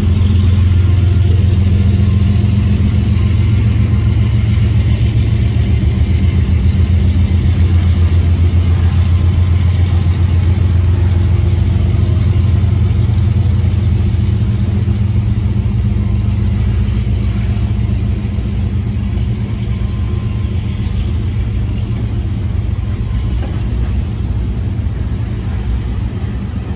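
Freight train of refrigerated boxcars rolling past: a steady, loud low rumble of steel wheels on rail that eases slightly toward the end.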